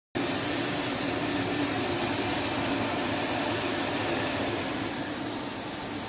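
AEG LX9-3 bagless canister vacuum cleaner running with a steady motor whir and rush of air, a little quieter from about five seconds in.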